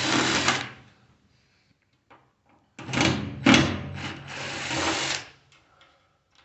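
Cordless drill-driver backing screws out of a microwave oven's metal housing: a short burst of the motor running at the start, then after a pause a longer run of about two and a half seconds.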